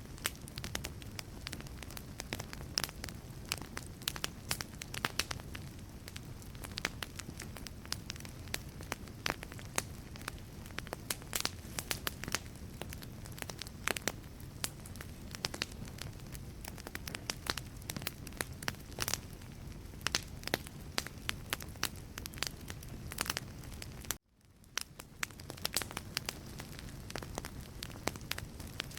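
Wood fire burning in a fireplace: frequent sharp crackles and pops from the logs over a steady low rush of flame. About 24 s in, the sound cuts out abruptly and fades back in over about a second.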